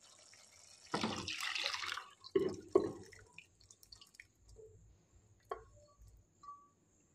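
Boiled kidney beans and their cooking water poured into a pan of masala: a splashing pour about a second in, then a couple of heavier plops and scattered drips.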